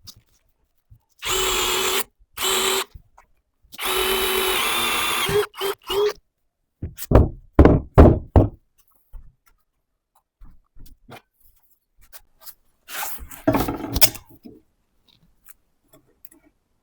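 Cordless drill running in several short bursts at a steady speed, then a run of loud knocks.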